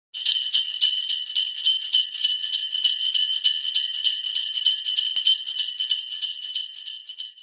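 Sleigh bells jingling in a steady shaken rhythm, bright and high, fading out near the end.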